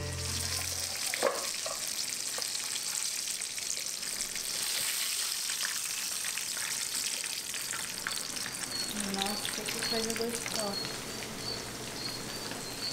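Breaded steaks frying in a pan of hot oil: a steady sizzle, with a few sharp clicks.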